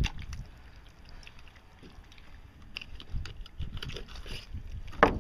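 Hands pulling the guts and fat out of a buffalo fish's belly cavity, making scattered soft wet clicks and crackles. There is a sharp knock at the start and a louder one about five seconds in.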